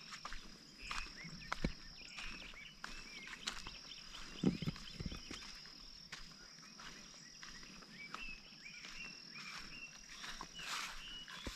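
Rural outdoor ambience: small birds chirping in short repeated calls over a steady high-pitched insect buzz that breaks off now and then. A few soft knocks and a low thump about four and a half seconds in.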